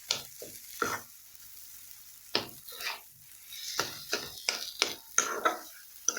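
A spatula scraping and knocking against a kadai as a thick mashed-potato filling is stirred and fried, with a faint sizzle underneath. The strokes come irregularly, a few early on and more quickly in the second half.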